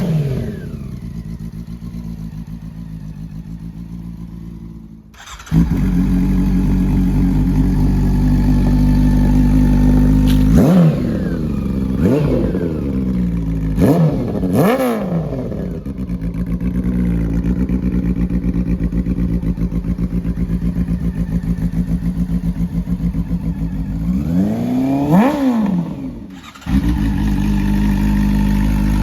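Honda CB400 Super Four VTEC inline-four engine idling with short throttle blips, several in quick succession about halfway through and one more near the end, the revs shooting up and falling straight back to idle. The exhaust note is quieter at first and jumps louder twice.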